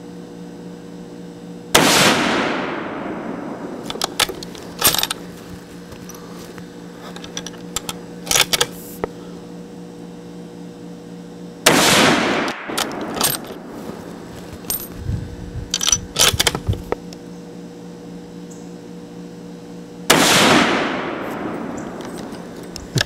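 Three shots from a Savage 110 High Country bolt-action rifle in .308, about ten and then eight seconds apart, each followed by a long fading echo. Between the shots come short metallic clicks as the bolt is worked.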